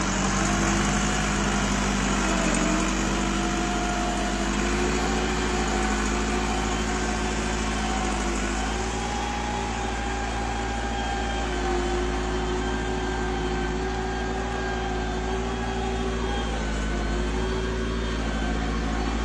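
Tractor diesel engine running steadily under load, its note wavering slightly up and down.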